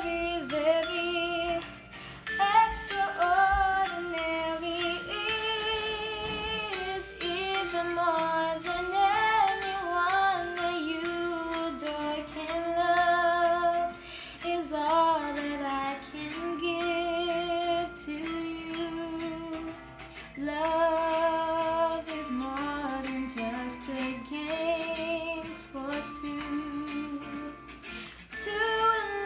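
A young woman's solo voice singing a slow love-song melody, holding notes with a wide vibrato and pausing briefly between phrases.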